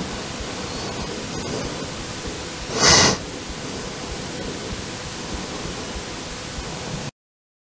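A steady hiss, with a short, louder breathy rush about three seconds in. The sound cuts off abruptly near the end.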